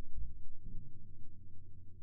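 Low, muffled rumble that fades away over a steady low hum: handling noise of an air rifle held on aim, heard through its scope-mounted camera.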